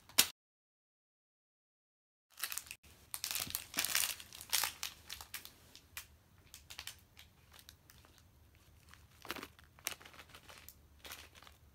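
A sharp click, then a couple of seconds of dead silence, followed by intermittent crinkling and rustling with light clicks, busiest early on and again about three-quarters of the way through.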